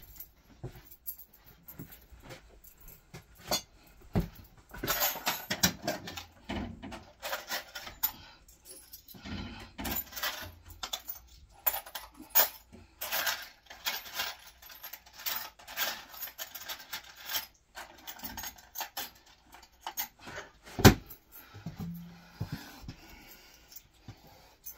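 Small metal hardware, screws and washers, clinking and rattling off and on as it is handled, with one sharp knock near the end.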